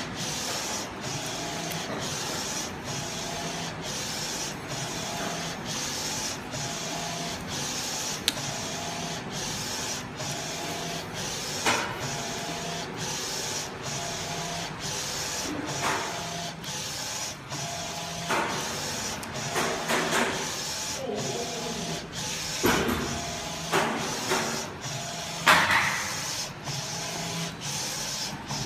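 Flatbed inkjet printer printing on PVC and foam pieces: the print-head carriage runs steadily back and forth, with a short break about every two-thirds of a second as it reverses. A few louder knocks come in the second half.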